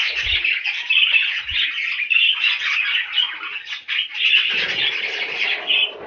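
Budgerigars chattering and chirping without a break, a dense high-pitched warble of several birds at once.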